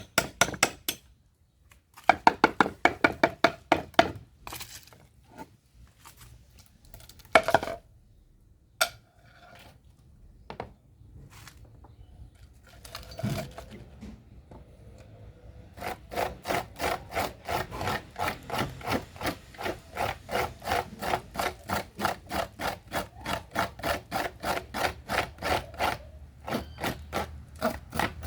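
A hand tool worked back and forth on wood, such as a saw or a rasp. A quick run of strokes comes first, then a few scattered scrapes and knocks, then a steady run of about three strokes a second through the second half.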